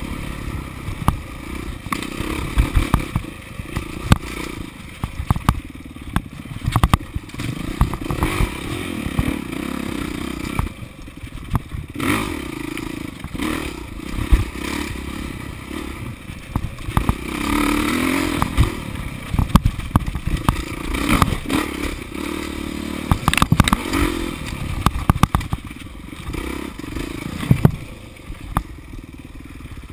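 Off-road dirt bike engine revving up and easing off again and again as it is ridden hard along a rough trail, with a rising rev about halfway through. Frequent clattering and knocking sounds run through it.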